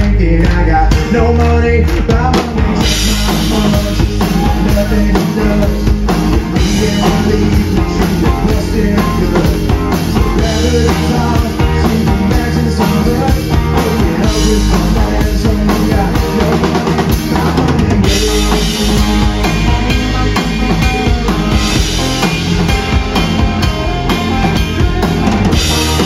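Live band playing: drum kit with kick and snare keeping a steady beat under acoustic and electric guitars.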